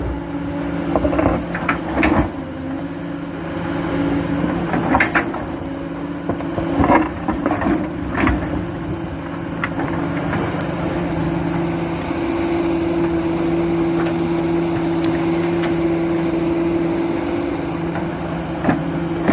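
Komatsu PC400 hydraulic excavator at work, its diesel engine running steadily under load with a faint high whine. Sharp knocks come now and then in the first half. The engine note grows stronger and steadier from about twelve seconds in.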